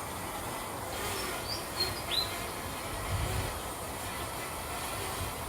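Steady noise of strong wind outdoors, with a few short high bird chirps between about one and two seconds in.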